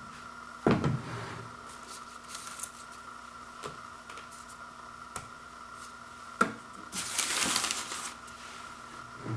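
Small speaker cabinets and parts being set down on a wooden floor: a knock about a second in and another past the six-second mark, then about a second of plastic packaging crinkling. A faint steady whine runs underneath.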